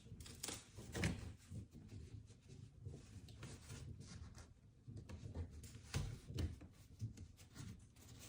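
Faint scattered clicks and knocks of a retrofit LED recessed light and its plastic trim ring being handled and pushed into the ceiling opening, the clearest about a second in and near six seconds in.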